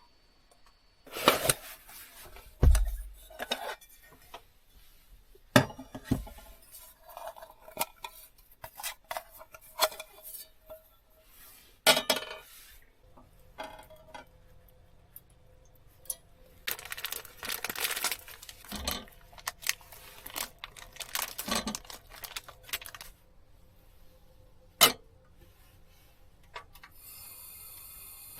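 Dishes, cookware and cutlery handled at close range: irregular clinks, knocks and clatter, busiest about two thirds of the way through, with a single sharp clank near the end.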